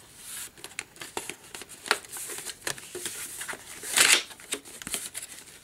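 Cardboard retail box being handled: fingers sliding and tapping on the card in short scratchy rustles, with a louder scrape about four seconds in as the end flap is worked open.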